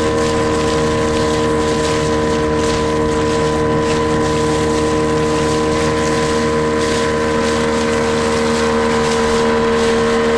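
Small outboard motor on an inflatable boat running steadily at cruising speed, its pitch unchanging, with the rush of water and spray along the hull.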